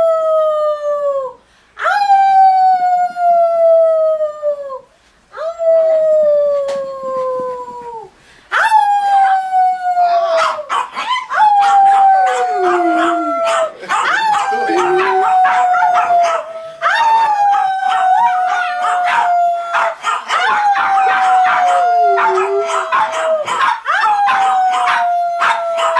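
A large dog howling in long drawn-out howls, each about three seconds and sagging slightly in pitch, with short pauses between the first three. From about nine seconds in the howls come almost back to back, joined by a lower howl that slides down and some rougher, noisier sound.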